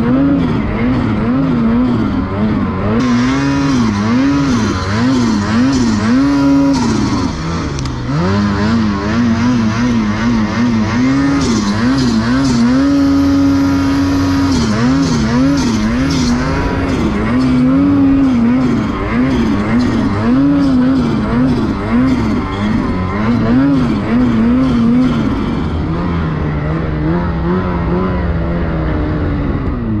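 Ski-Doo snowmobile's turbocharged two-stroke engine being ridden hard through deep powder, its revs swinging up and down every second or so under constant throttle work. About halfway through it holds a steady high rev briefly, and near the end it settles to a lower, steadier speed.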